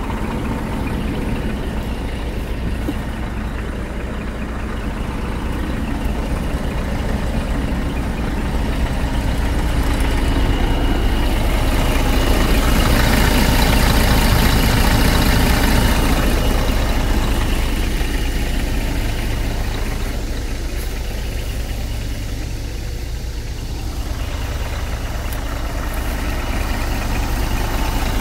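Scania G420 truck's six-cylinder diesel engine idling steadily, growing louder in the middle of the stretch as the microphone nears the engine under the cab, then easing off again.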